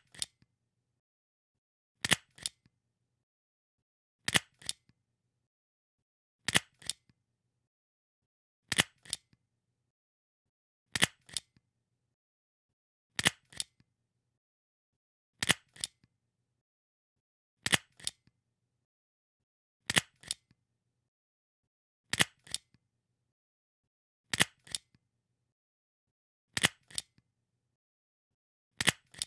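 Stapler being pressed over and over, about once every two seconds, each press giving a sharp double click.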